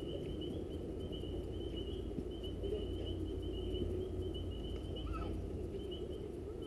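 Steady outdoor ambience: a low rumble under a thin, wavering high-pitched trill, with no distinct impacts.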